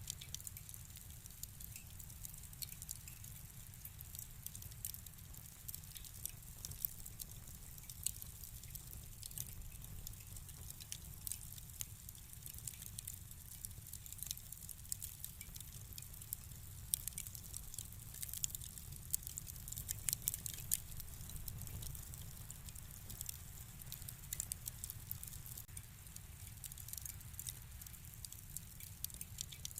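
Wood fire crackling in a fireplace: many irregular small pops and snaps over a steady low rumble of the flames.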